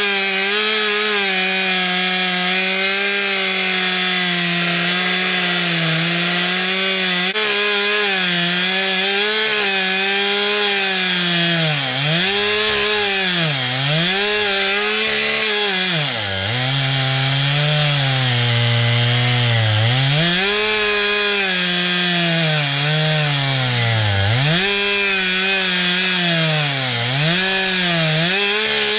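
Stihl two-stroke chainsaw running at high speed, then cutting into a log: its pitch drops again and again as the chain loads up in the wood and recovers between cuts, with the deepest, longest bog about halfway through.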